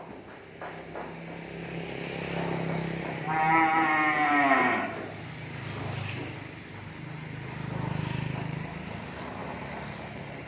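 A young bull moos once, loud, about a second and a half long and dropping in pitch at the end, with a softer low hum before and after.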